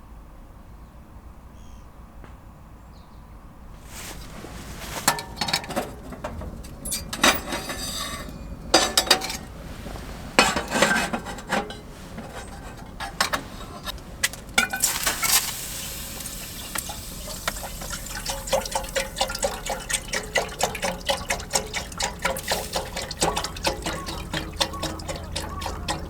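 Camp cooking: pots, dishes and utensils clinking and knocking from about four seconds in, then liquid sounds with a dense run of fine crackles from about halfway on.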